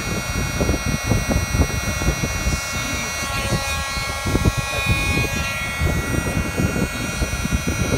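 Electric heat gun running: a steady fan whine made of several high tones, with its hot air blast buffeting the microphone in an irregular low rumble. It is shrinking marine heat-shrink tubing over a coax connector.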